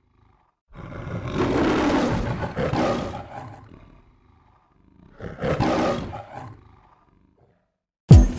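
Lion roaring twice, a long roar and then a shorter one, as a studio-logo sound effect. Music with a heavy bass beat comes in suddenly near the end.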